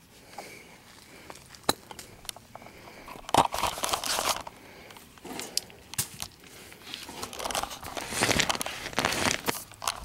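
Crackling, rustling handling noise with scattered sharp clicks as lubricated insulated wires are pushed by hand into a PVC electrical conduit, in two longer rustling stretches, about three seconds in and again near the end.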